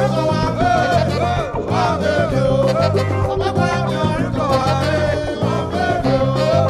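Afrobeat band playing live: bass guitar, drum kit and congas keep a steady groove under a wavering, sliding lead melody.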